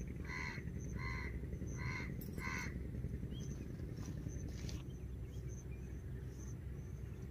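A bird calling four times in quick succession, short calls about two-thirds of a second apart, over a steady low background noise; after about three seconds only the background remains.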